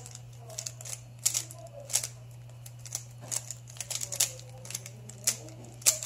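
Stickerless plastic 3x3 Rubik's cube being turned by hand: quick, irregular clicks and clacks, several a second and bunched in clusters, as the layers snap round, over a steady low hum.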